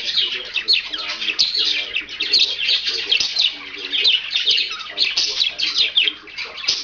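Budgerigar warbling and chattering: an unbroken stream of quick, high chirps and twittering notes.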